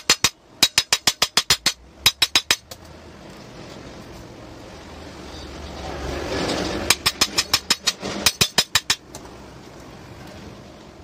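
Sharp taps in quick even runs of about nine a second, five short runs in all, like rapid hammering. A rush of noise swells and fades about six seconds in.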